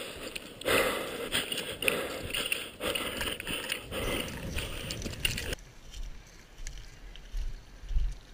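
Running footsteps crunching over dry forest ground and bracken, with kit rattling, a step every half second or so. About two-thirds of the way through the sound turns abruptly duller, leaving only low thumps.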